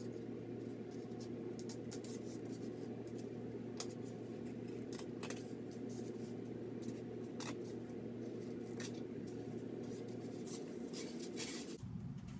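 Ordinary scissors snipping through wig lace along the hairline: an irregular run of short, sharp snips. A steady low hum sits underneath and stops shortly before the end.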